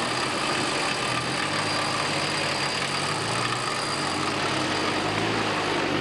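Range Rover engine running steadily at low revs, under a steady hiss.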